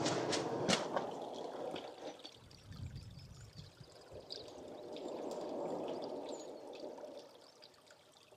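Small rocky stream trickling and splashing over stones at close range, with a few sharp clicks in the first second.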